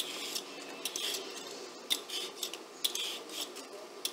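A handheld vegetable peeler scraping along a raw sweet potato, peeling it in short repeated strokes about two a second.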